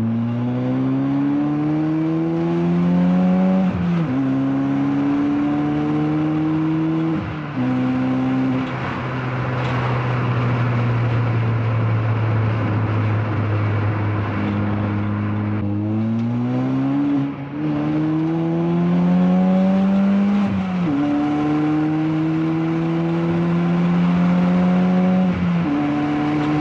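Mk6 Ford Fiesta's 1.6 Zetec S four-cylinder engine through a Hornet cat-back race exhaust, pulling up through the revs. The pitch drops sharply at each of several gear changes, with a steady cruise stretch in the middle.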